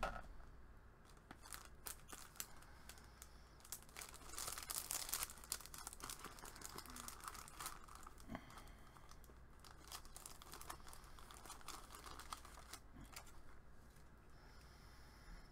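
Plastic sticker packets and sheets of adhesive pearls and gems crinkling and rustling as they are sorted through in a plastic box, with scattered light clicks. It is busiest about four to five seconds in and thins out near the end, when pearls are peeled off a sheet.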